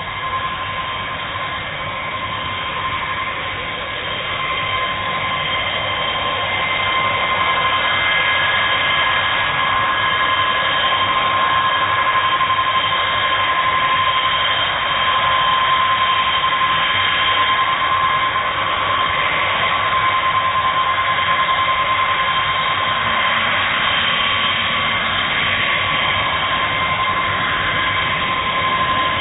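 Boeing B-52 Stratofortress taxiing, its eight turbofan engines running with a steady high whine over a rushing jet noise. The sound grows louder over the first several seconds, then holds steady.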